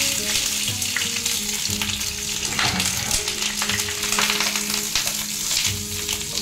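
Banana-leaf parcels sizzling steadily in hot mustard oil in a nonstick frying pan. Near the end a wooden spatula scrapes and shifts them.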